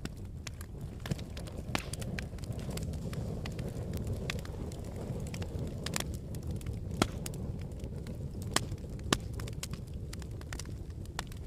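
Campfire burning: irregular sharp crackles and pops from the burning wood over a steady low rumble, with a few louder pops in the second half.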